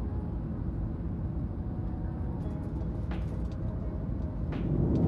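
Steady rush of a jet airliner cabin as heard from a window seat: engine and airflow noise during the climb after takeoff. Two brief clicks come about three and four and a half seconds in.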